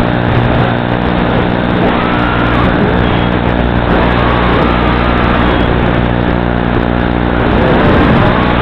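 Brushless motors of a 240 mm FPV racing quadcopter whining in flight, the pitch rising and falling several times with throttle. A steady buzzing hum sits underneath.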